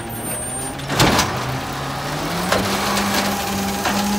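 Garbage truck engine running, its pitch rising a little over two seconds in and then holding higher, as when the truck revs up. A sharp bang about a second in, with a few lighter knocks later.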